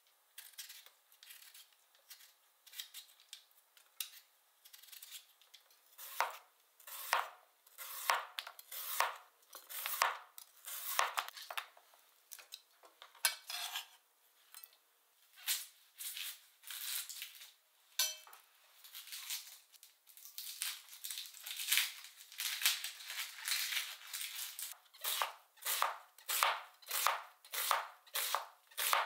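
A peeler scraping the skin off a potato, faint and irregular, then a kitchen knife slicing peeled potato and an onion on a cutting board: a long run of short, crisp cutting strokes that settles into an even rhythm of about two strokes a second near the end.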